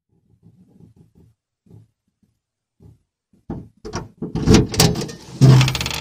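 Camping gear being shifted and pulled out of a car's cargo area under the open rear hatch: a few faint muffled sounds, then sudden clattering knocks and rustling from about three and a half seconds in.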